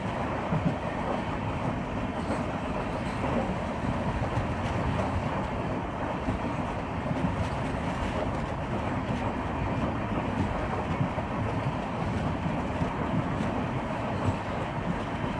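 Train running along the track: a steady, even rumble and rattle that neither builds nor fades, with a few faint clicks.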